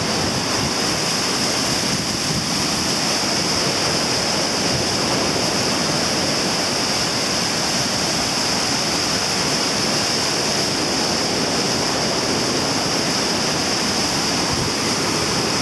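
Lagoon floodwater rushing out through a breached sand dyke into the sea, a steady, unbroken rush of churning water mixed with surf.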